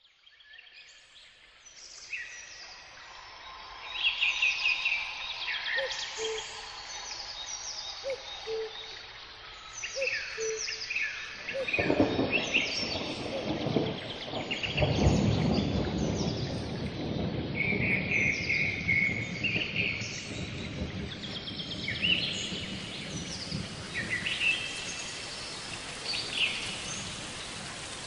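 Birds chirping and singing, with a short low call repeated several times during the first ten seconds. From about twelve seconds in, wind rumbles on the microphone under the birdsong.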